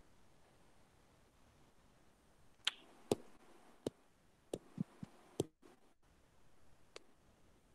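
Quiet room tone broken by about eight short, sharp clicks and taps, scattered irregularly through the middle and mostly clustered there.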